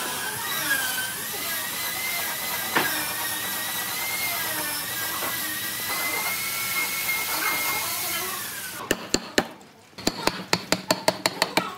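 A power tool runs with a whine that wavers up and down in pitch, then cuts off about nine seconds in. A quick run of sharp taps follows, about six a second, like a hammer or mallet striking wood.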